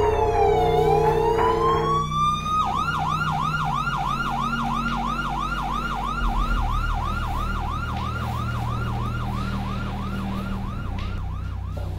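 Emergency siren sounding a slow wail that falls and rises. About two and a half seconds in it switches to a fast yelp of about three sweeps a second, which cuts off near the end.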